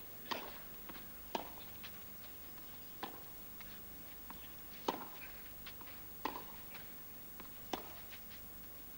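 Tennis ball hit back and forth by racket strings in a baseline rally on clay: six sharp hits spaced about one and a half seconds apart, with softer bounces and footfalls in between.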